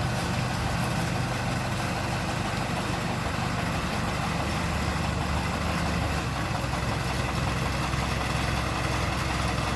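Large engine idling steadily with a constant low hum.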